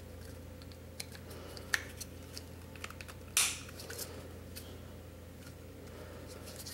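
Small clicks and taps of a Glock 19 frame and its beavertail being handled and hooked together by hand, with one louder brief scrape about three and a half seconds in, over a low steady hum.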